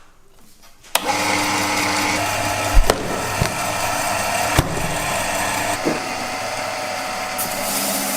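An electric power tool switched on about a second in and running steadily, with a few sharp knocks while it runs.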